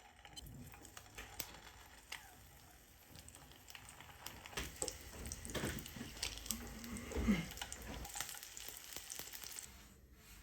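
Shami kababs shallow-frying in oil: a steady sizzle with scattered sharp crackles and pops.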